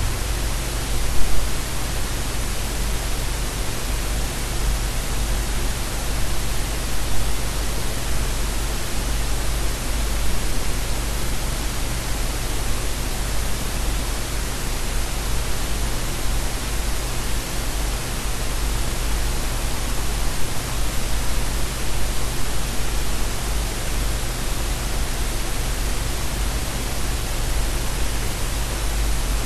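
Steady static-like hiss with a low steady hum beneath it, and a brief louder crackle about a second in.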